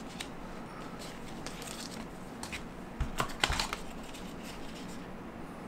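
Paper inserts and the cardboard packaging of an Apple AirPods Pro box being handled, giving light taps and clicks, with a short cluster of sharper clicks about three seconds in.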